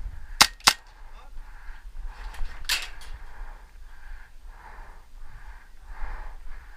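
Airsoft guns firing: two sharp cracks in quick succession about half a second in, then another crack nearly three seconds in.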